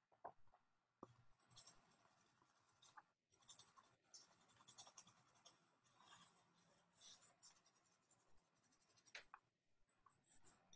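Faint scratching of a pencil on paper in quick, repeated shading strokes, pausing briefly twice.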